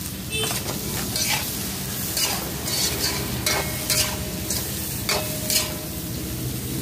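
Spatula scraping and clinking against a wok as fried chicken pieces with onion and chillies are stirred, in repeated strokes about every half second or so, over a steady sizzle of frying.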